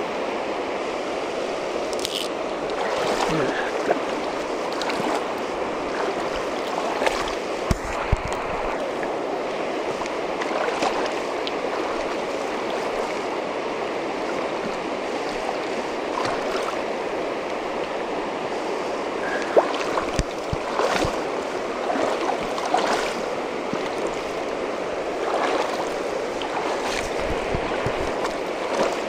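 Steady rush of river current, with a scattered handful of short knocks and clicks, the loudest about two-thirds of the way through.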